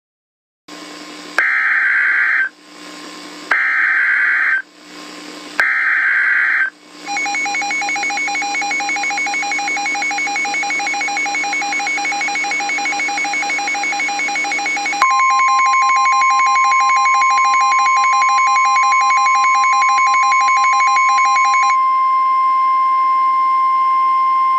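Emergency Alert System broadcast signal: three short bursts of screeching digital header data about a second apart, then a rapidly warbling alert tone. About halfway through, a steady single tone joins the warble. The warble drops out near the end, leaving the steady tone alone.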